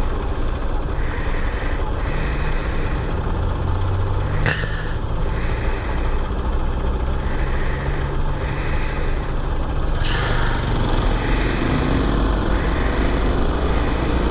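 Engine of a cold 200 cc Chinese dual-sport motorcycle idling steadily while stopped. Its note picks up and grows a little louder in the last few seconds as the bike moves off, held back gently because the engine is still cold.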